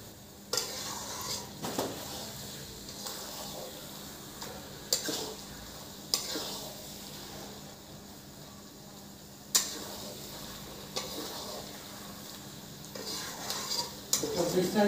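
Metal spatula stirring and scraping paneer, onions and spices around a kadai, with a light frying sizzle underneath. Several sharp clanks come as the spatula strikes the pan's rim and sides.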